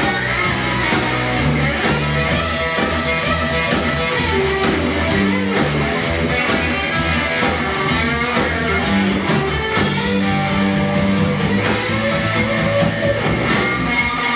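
Live rock band playing at full volume: electric guitar, electric bass and a Yamaha drum kit, with steady drum strokes under the bass and guitar.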